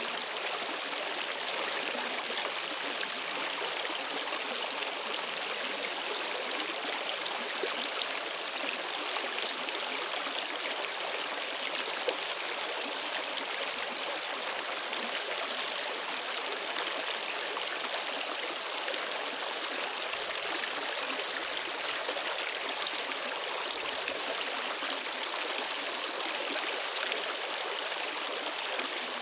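Steady rushing of running water, like a stream, with no breaks or separate events.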